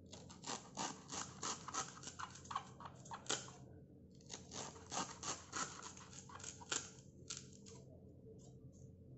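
Kitchen knife cutting thin slices from a banana stem, short scraping strokes at about three or four a second, in two runs with a brief pause about halfway.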